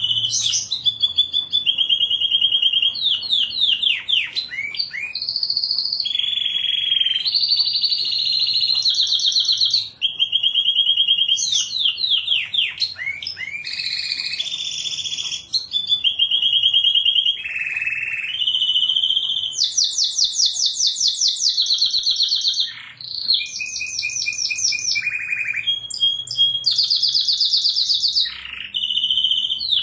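Canary singing a long, unbroken song made of rapid trills: each run repeats one note quickly for a second or two, then switches to a different note higher or lower, with some quick sweeping notes in between.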